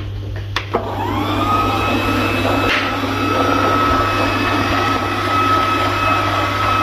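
Ecovacs Deebot robot vacuum starting up: a couple of clicks, then its motor spins up with a rising whine that settles into a steady high-pitched whine over a low hum as it runs across the tiled floor.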